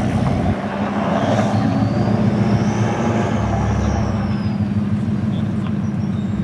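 Ford Mustang's engine running with a steady low rumble as the car pulls slowly away. A faint high whine rises and falls around the middle.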